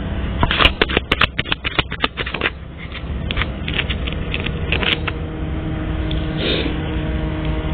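A deck of cards being shuffled: a quick run of crisp flicking clicks from about half a second in to two and a half seconds, then a few scattered clicks, over a steady low hum.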